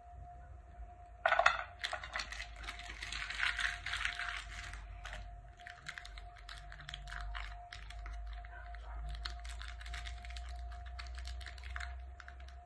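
Chocolate bar wrappers crinkling and crackling as they are handled and opened, with a sharp loud crackle about a second in, followed by a dense stretch of crinkling and then scattered small crinkles and clicks.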